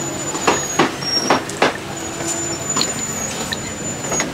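Busy outdoor street-market ambience: a steady hum under a thin high whine. Four sharp knocks or clatters come between about half a second and a second and a half in.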